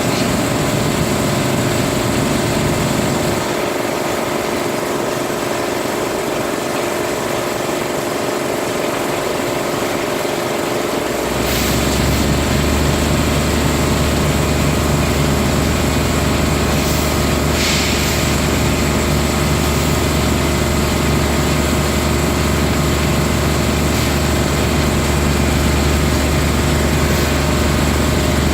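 Industrial machinery running steadily, a drone with several steady tones; a deep low hum comes in about a third of the way through, and two short hisses are heard around the same time.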